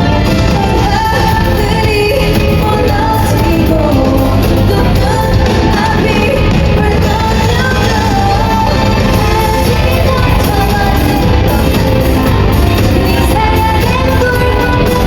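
Amplified pop song played live in a large hall, with a female group singing over a loud backing track that has a steady beat.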